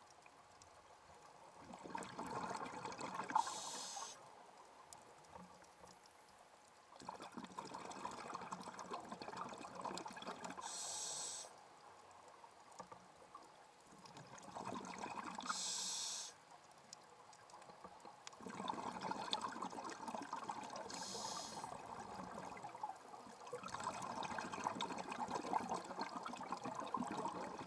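Scuba diver's breathing through a regulator underwater: about five breath cycles, each a couple of seconds of bubbling, gurgling air with a short hiss at its close, separated by quieter pauses.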